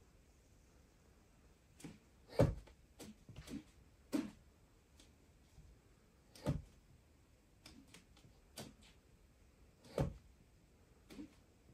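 A series of irregular knocks and thuds in a quiet room, the loudest about two and a half seconds in, others near four, six and a half and ten seconds, with fainter taps between.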